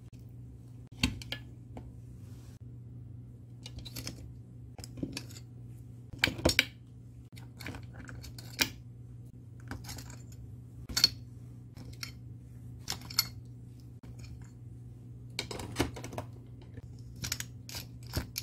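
Scattered, irregular clicks and taps of a utensil moving soy-marinated stone crabs on a plate, hard shells knocking against each other and the plate, over a faint steady hum.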